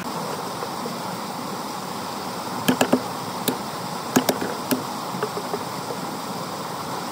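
Machete blade striking a wooden stick: a quick run of three sharp knocks about two and a half seconds in, one more a moment later, then a few more around four seconds in, over a steady background hiss.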